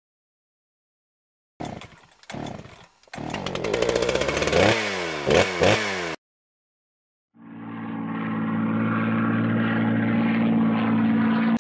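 Dubbed-in mechanical sound effects: a few clattering knocks, then a motor sound whose pitch swoops up and down like revving for about three seconds, cut off abruptly. After a second of silence a steady engine-like drone fades in and holds.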